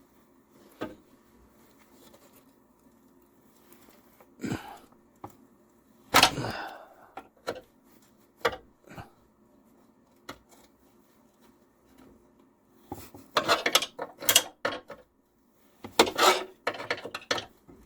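Scattered metal clinks and knocks of a wrench on a mower deck's bolts, with a short scraping rub, then near the end two bursts of rapid clicking as a ratcheting wrench turns a bolt loose.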